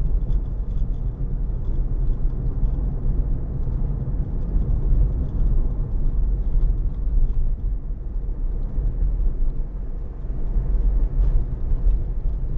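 Road and tyre noise inside the cabin of a moving Tesla Model Y, an electric car with no engine running: a steady low rumble.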